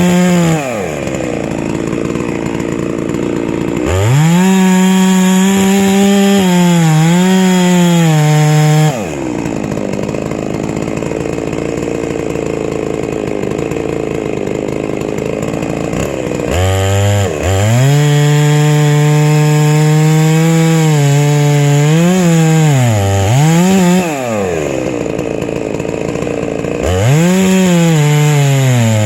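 Huztl MS660-clone chainsaw running at high revs in a milling cut through a log. Its engine pitch repeatedly rises, holds and dips, alternating with rougher stretches where the steady pitch drops away.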